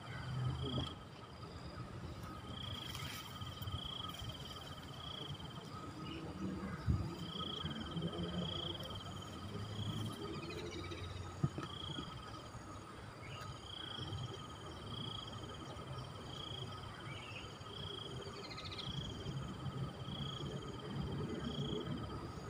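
Insects trilling in a steady high-pitched buzz that comes in repeated stretches of a second or two with short gaps, over a low background rumble, with a few brief falling chirps.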